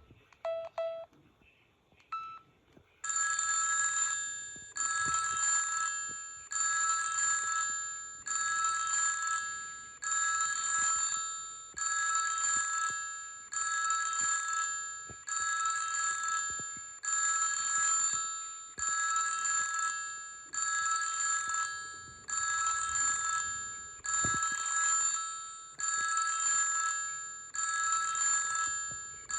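Corise KS728 mobile phone playing a bell-like ringtone: a high ring repeated about every 1.7 seconds, each ring fading away. It starts about three seconds in, after a few short beeps.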